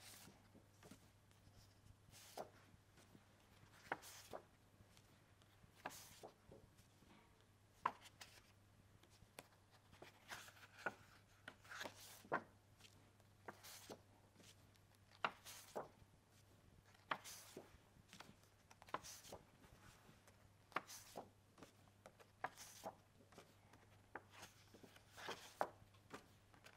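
Faint taps and rustles of cardboard flashcards being flipped from one card to the next in the hand, about every two seconds, over a low steady hum.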